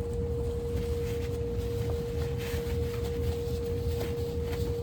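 A steady pure tone at one mid pitch, held unchanged, over a low rumble with a few faint ticks of handling noise.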